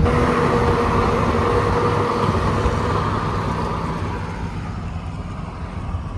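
A truck driving on the road: steady engine and road noise, slowly getting quieter over the last few seconds.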